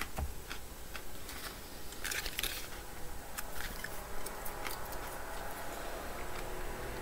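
A plastic squeeze-pack of mustard being handled and its red screw cap worked open: scattered small clicks, with a brief crinkle of plastic about two seconds in.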